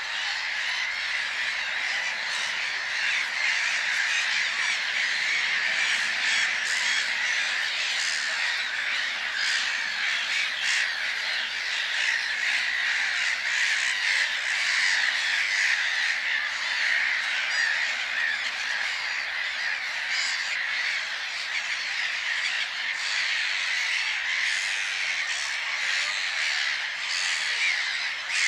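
A large flock of birds calling all at once: a dense, unbroken chatter of many overlapping calls at an even level.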